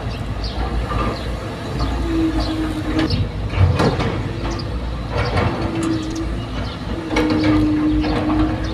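Excavator at work: the engine runs under a steady low rumble, a held whine comes and goes in stretches of about a second, and there are frequent sharp metal clanks and short high squeaks.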